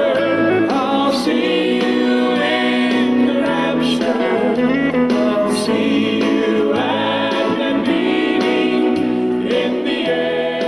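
Intro music with a choir singing, steady throughout.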